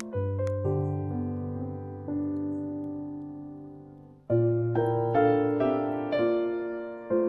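Background piano music: slow chords struck and left to fade, over deep bass notes, with a new group of notes about four seconds in.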